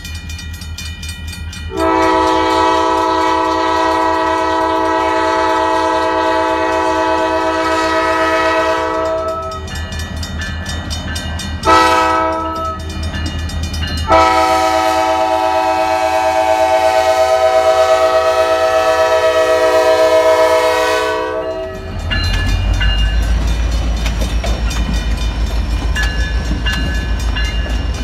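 A diesel locomotive's air horn blows the grade-crossing signal: a long blast, a short one, then a long one, over the steady clanging of the crossing's MI mechanical bells. Near the end the locomotive passes close by, its diesel engine rumbling low.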